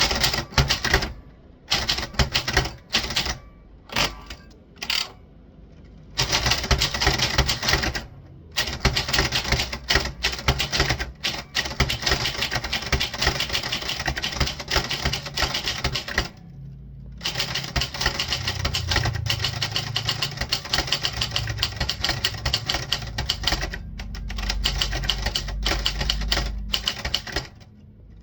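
Typewriter being typed on: rapid runs of keystrikes broken by short pauses. A low hum sits under the typing through the second half.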